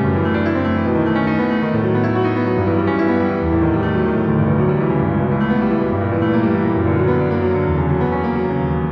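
Background piano music, slow and tender, with sustained chords.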